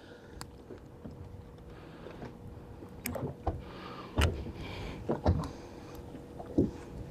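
Scattered knocks and thumps on a fishing boat's carpeted deck as a landed crappie is picked up and handled, over a low steady rumble of wind and water against the hull.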